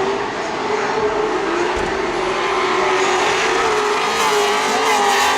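Loud racing engines running at high revs, one strong engine note wavering and rising slightly in pitch.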